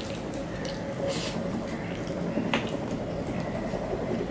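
Fingers mixing rice with fish curry on a steel plate: soft wet squishing with small scattered clicks against the metal, and one sharper tap about two and a half seconds in. A faint steady hum runs underneath.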